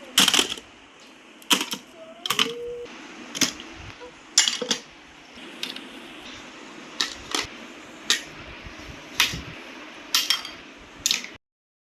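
Hard toys being put into a drawer: about a dozen irregular knocks and clacks, a second or so apart.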